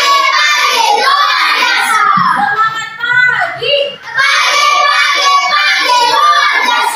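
A class of children singing a song together in unison, loud and lively, with a brief break partway through.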